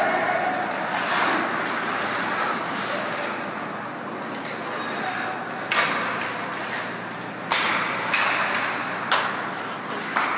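Ice hockey play in an arena: a steady hiss of skates on ice and crowd, broken in the second half by four sharp knocks of sticks and puck.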